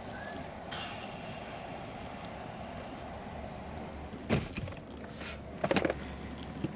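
Steady hum of a gas station pump dispensing fuel into a car, with a few short knocks in the last couple of seconds.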